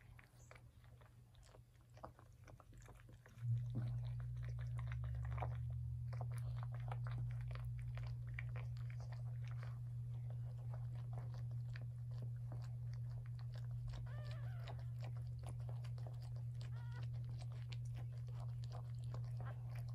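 Cocker spaniel mother licking and chewing at a newborn puppy and its birth sac: many small wet licking and chewing sounds, with a few faint newborn puppy squeaks past the middle. A steady low hum starts with a thump about three and a half seconds in and is the loudest sound.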